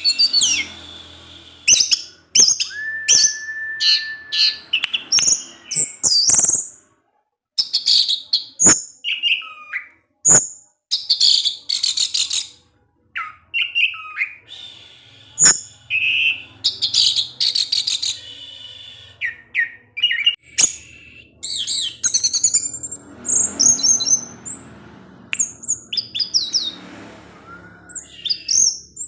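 Orange-headed thrush singing its full 'teler' song: a quick run of varied high whistles, chirps and trills in short phrases, with a few brief breaks.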